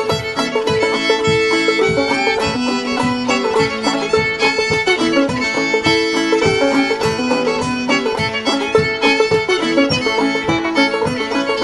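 Old-time fiddle tune played on clawhammer banjo, fiddle and guitar together, in the key of A. The five-string banjo is in G tuning capoed up two, and its steady picked rhythm runs under the fiddle melody.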